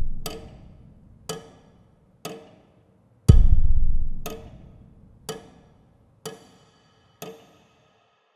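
Percussive intro music: single sharp knocks about once a second, each ringing briefly. A heavy deep boom comes about three seconds in and dies away slowly.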